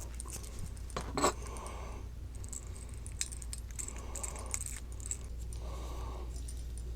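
Small metal air-line fittings clinking and scraping as they are handled and threaded together, with a couple of sharp clicks about a second in.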